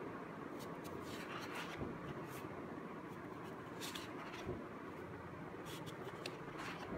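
Loose sheets of drawing paper being handled and turned over, giving soft rustles and brief scrapes several times.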